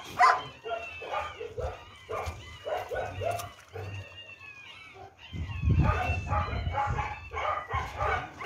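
Many dogs whining, yipping and barking together, excited as food is poured into their trough. The noise grows louder about five seconds in.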